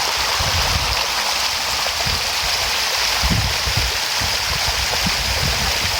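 Water of a hill stream rushing steadily over rocks, as a constant hiss, with irregular low rumbles underneath.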